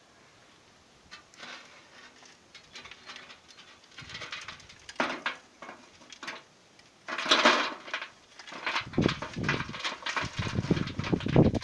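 Lit charcoal being tipped out of a metal chimney starter into a steel grill: scattered clicks and scrapes of metal and coals at first, then, from about seven seconds in, a louder run of coals clattering and tumbling into the grill.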